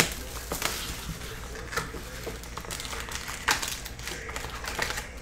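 Crinkling wrapper and tapping cardboard as a hobby box of trading cards is opened and its foil card packs are handled: a string of short, sharp rustles and taps, the loudest about three and a half seconds in.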